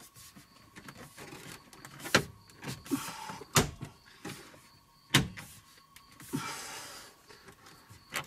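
Plastic dashboard trim being pressed and worked into place by hand: three sharp snaps, with plastic rubbing and scraping between them.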